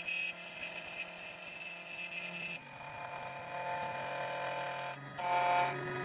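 2M2 Tank II Pro CNC key cutting machine milling the second side of an inner-groove key blank, its cutter spindle and axis motors running with a steady whine. The tones shift in pitch a few times as the cutter moves along the groove, with a brief louder stretch about five seconds in.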